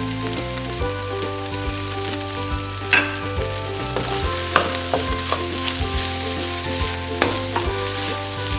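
Chicken fried rice sizzling in a hot pan as it is stir-fried, with a utensil scraping and clacking against the pan now and then, the loudest knock about three seconds in.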